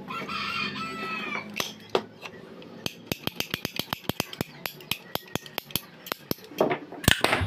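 Ratcheting PPR pipe cutter clicking rapidly, about six clicks a second, as its handle is squeezed to cut through a plastic PPR pipe. Before the clicking starts, a drawn-out animal call sounds in the background.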